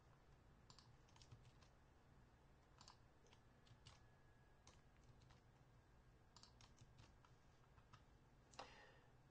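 Faint, irregular clicks of computer keyboard keys being typed, with one louder, brief noise near the end.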